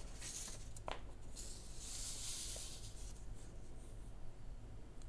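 Quiet room tone with a single soft click about a second in and a brief faint rustle around two seconds in.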